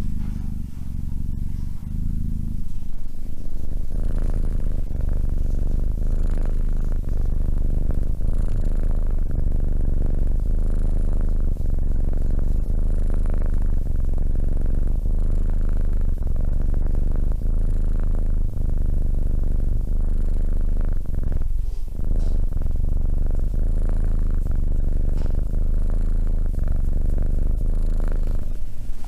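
Domestic cat purring steadily and loudly, a low rumbling purr that pulses with its breathing.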